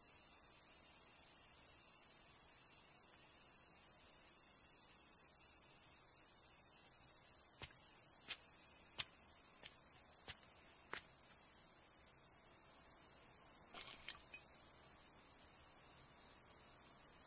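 Faint steady high-pitched drone of summer insects, with a few faint short clicks about halfway through.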